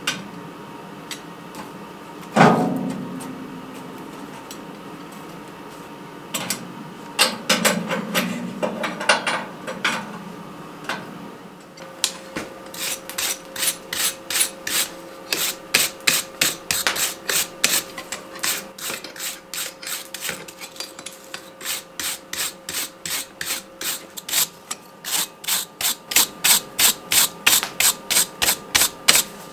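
Hand filing of a forged steel bottle opener: after a single ringing metal clank and a few scattered strokes, a file or rasp scrapes across the steel in a steady rhythm of about one and a half to two strokes a second.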